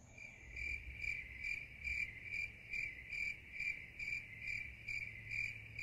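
Crickets chirping in an even rhythm, a little over two short chirps a second.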